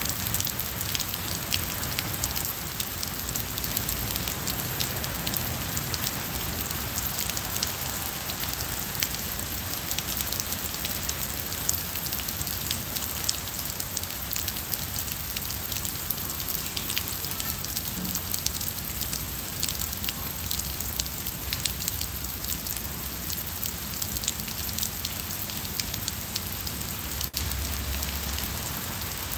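Steady rain falling on wet stone paving and lawn: an even hiss scattered with many small, sharp drop ticks.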